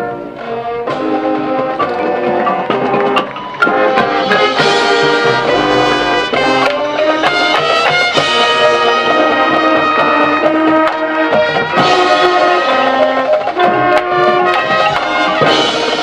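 Marching band playing: brass sustaining loud chords over percussion hits. There is a short break about three seconds in, and then the full band comes back in louder.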